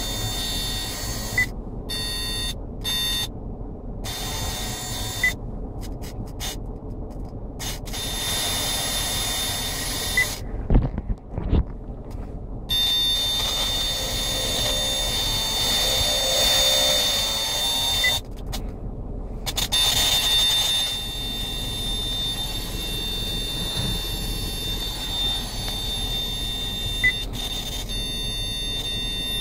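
Steady high-pitched whistle from the speakers of a KIA Sportage's factory multimedia head unit, over a low cabin hum: a fault in the new audio system. A few short knocks come about ten seconds in.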